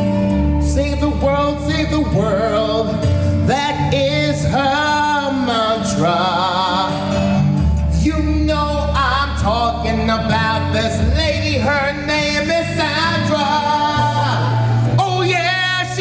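A man singing a melody with wavering held notes over an instrumental backing with a steady bass line.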